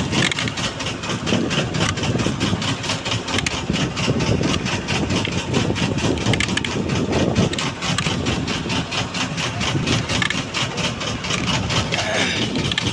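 Engine on a fishing boat running steadily at low speed, with an even, rapid beat.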